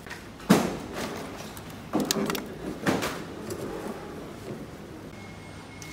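Knocks and clatters of handling produce in a shop: one sharp knock about half a second in, then a quick cluster of clatters about two seconds in and another knock a second later, as a plastic clamshell pack of mini tomatoes is taken from its crate.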